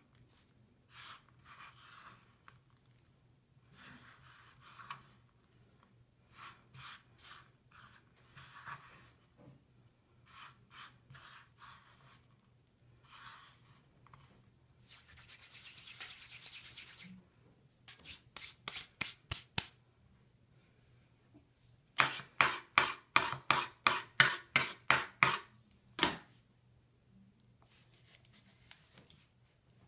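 Crumbled pieces of Lush bubble bar being scooped by hand into a stainless-steel mesh sieve, crackling and rustling in short bursts, then shaken in the sieve so they rasp and rattle against the mesh. Near the end comes a quick run of about a dozen loud, sharp strokes.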